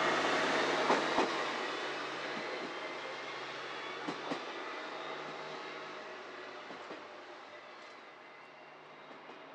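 A train running away along the track, its noise fading steadily, with short paired clicks of the wheels over rail joints about one and four seconds in.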